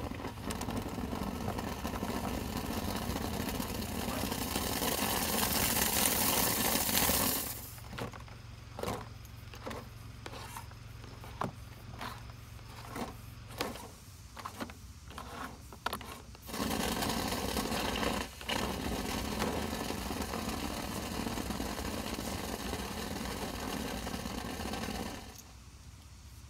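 A vent-cleaning machine's motor runs with a steady rushing noise, stops after about seven seconds for a stretch of knocks and clicks, then runs again until it cuts off near the end.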